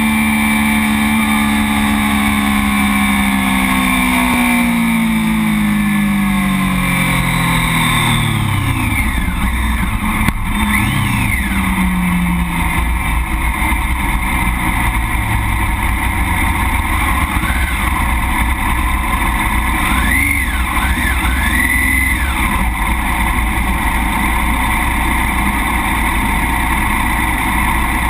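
Sportbike engine winding down as the bike rolls off and slows, its pitch falling steadily over the first nine seconds or so, then running low and steady at idle under a constant rushing noise. Other motorcycles rev briefly in the background, a few times around the middle.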